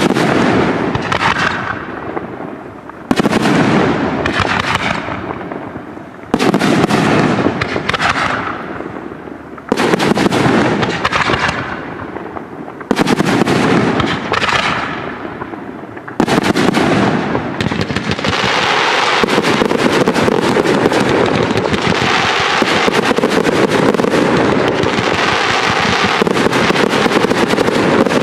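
Aerial firework shells bursting. A big bang about every three seconds, each fading away slowly, then about halfway through the bursts merge into a continuous barrage.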